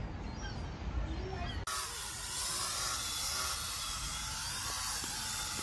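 Birds calling over a low rumble, then, about a second and a half in, a sudden switch to a steady, loud hiss of noise.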